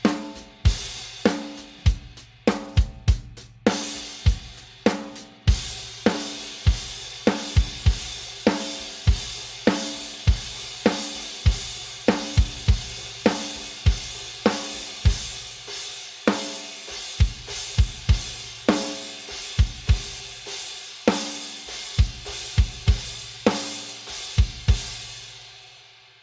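Meinl Byzance Extra Dry 18" Dual Crash, a hammered and lathed cymbal, played in a steady drum-kit groove with kick and snare. The strikes fall about twice a second. From about five seconds in, the cymbal's wash rings without a break, and everything fades out near the end.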